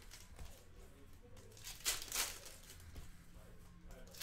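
Foil wrappers of Panini Hoops basketball card packs crinkling as hands handle them, with one louder rustle about two seconds in.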